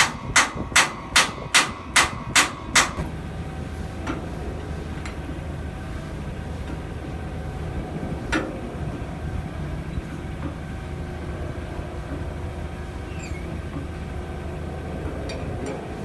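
Hammer striking a steel hinge pin in quick, evenly spaced blows, about two or three a second, knocking the pin out of a dock leveler's hinge; the blows stop about three seconds in. After that a steady low hum with a few scattered faint knocks, one louder knock about eight seconds in.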